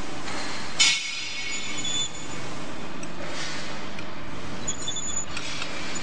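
Small aluminium-alloy manual wire stripping machine being worked on a cable: a steady hiss-like noise, a sharp metallic clink about a second in that rings briefly, and a few short high squeaks later on.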